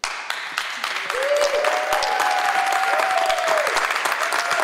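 Audience applauding, starting suddenly, with drawn-out cheering calls rising and falling over the clapping.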